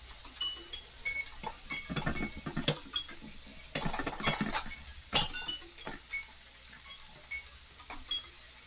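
Stovetop pressure cooker's regulator weight being worked by hand to let the pressure out slowly. Two spells of rapid metallic clinking and crackling come from the lid vent, with one sharp clink about five seconds in.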